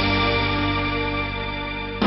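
Background music: a sustained keyboard chord that slowly fades.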